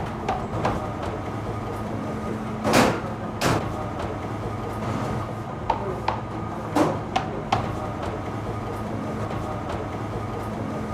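Bakery workshop noise: a steady machine hum with a few sharp knocks and clatters at irregular intervals, the loudest about three seconds in.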